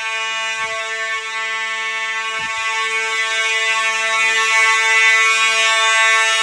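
Simplex fire alarm system horn sounding a steady, unbroken buzzing tone.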